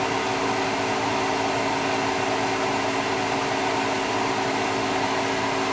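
Steady noise inside a car's cabin in slow traffic: an even hiss with a few low, steady hum tones from the car's engine and ventilation.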